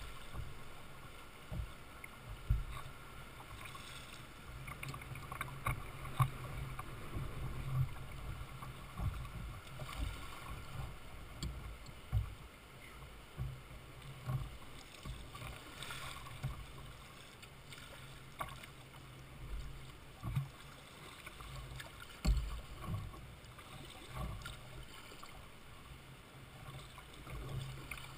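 Jackson Coosa kayak moving across flat water: paddle strokes dip and splash, and water laps and knocks against the plastic hull every second or two, over a low rumble.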